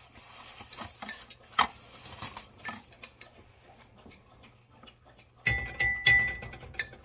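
Light clicks and taps of dishes and utensils at a kitchen counter as a bowl is topped, with a louder scraping clatter about five and a half seconds in that lasts about a second.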